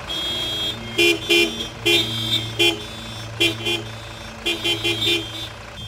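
Car horns honking in short repeated blasts, some in quick pairs, from a queue of stopped cars, over the low steady hum of idling engines.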